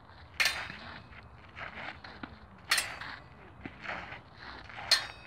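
Rapier blades clashing three times, each a sharp strike with a faint metallic ring, with shuffling footsteps on the dirt path in between.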